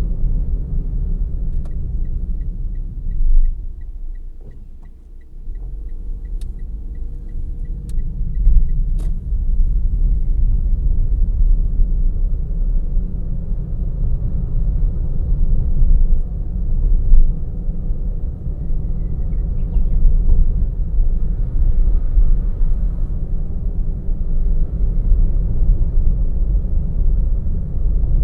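A car driving, with a steady low rumble of road and engine noise. A light, even ticking, about three ticks a second, runs for several seconds near the start, with a few sharp clicks. The rumble dips briefly about four seconds in.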